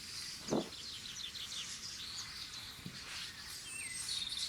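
Small birds chirping and calling: many quick high notes and short whistles overlapping. A single short dull knock about half a second in.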